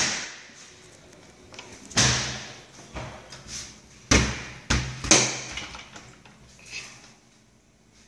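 Toilet stall door being pushed, swung and shut: a series of sharp bangs and latch clatters, with one about two seconds in and three close together around four to five seconds.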